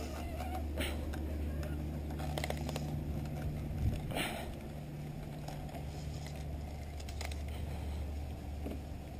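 Steady low machine hum, with a few short clicks and scrapes scattered through it.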